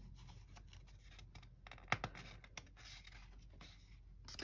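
Page of a picture book being turned by hand: faint paper rustling and sliding, with one louder click about two seconds in.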